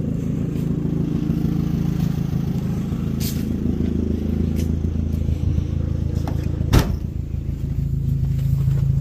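Suzuki Sidekick's four-cylinder engine idling steadily. A light knock comes about a third of the way in, and a louder sharp thump about two-thirds through.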